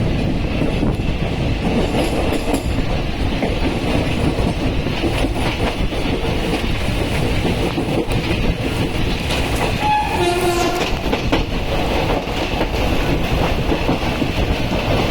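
Passenger train running on the rails, its wheels clattering steadily over the track, with a short falling tone about ten seconds in.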